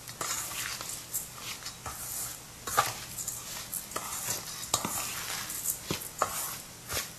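Metal spoon stirring and scraping a coarse spice mix (pickle masala) in a stainless-steel bowl, with irregular clinks of the spoon against the bowl.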